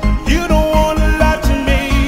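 Electronic dance music with a steady thumping beat, about four beats a second, and a synth melody over it.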